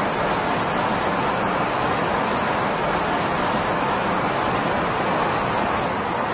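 Steady jet aircraft noise: an even rushing hiss with a thin, constant high whine above it.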